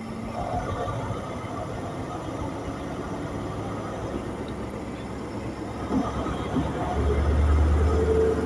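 High Speed Train (InterCity 125) Class 43 diesel power car running as the train pulls away, a steady low rumble. The engine note swells and grows louder about seven seconds in as it works harder.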